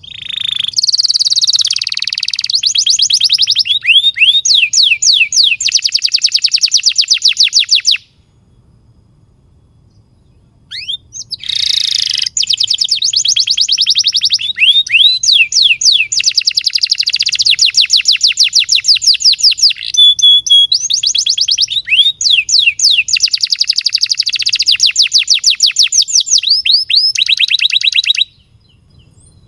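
Domestic canary singing a long song of fast rolling trills and rapidly repeated rising and falling whistled notes. It sings for about eight seconds, pauses for about three, then sings again for about seventeen seconds before stopping near the end.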